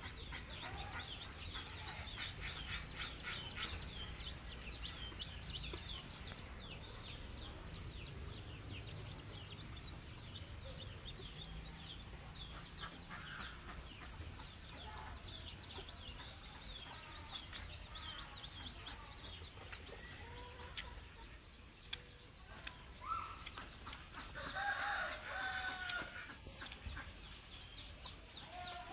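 Village chickens clucking and calling, with quick, high, falling peeps repeating through much of the time and a rooster crowing once, about three-quarters through.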